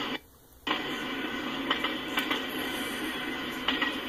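Freight cars of a long train rolling past, a steady noise of wheels on rail with a few sharp clicks. The sound drops out for about half a second near the start.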